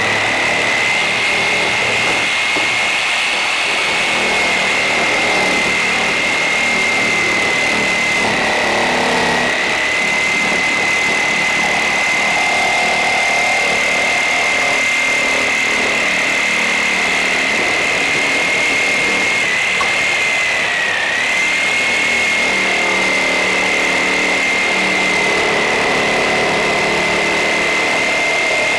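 Electric power saw running with a steady high whine, its pitch dipping briefly about two-thirds of the way through.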